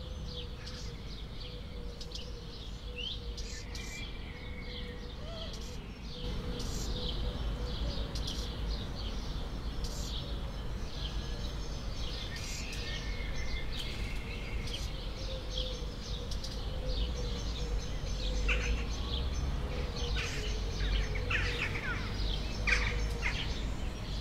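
Small birds chirping and twittering again and again over a steady outdoor background that gets louder about six seconds in, with a faint steady hum underneath.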